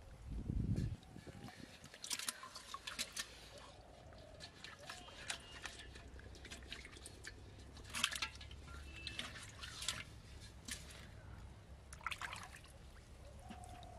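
Water splashing, sloshing and dripping in an aluminium pot of freshly caught fish as they are handled and lifted out, with short wet splashes every second or two. A low thump about half a second in.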